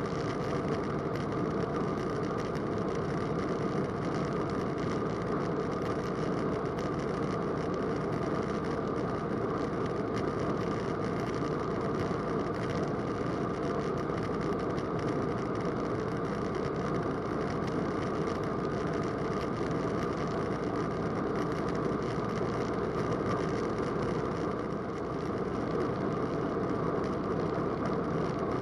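Roland Aircraft Z602 ultralight's piston engine and propeller droning steadily in cruise, heard inside the cockpit.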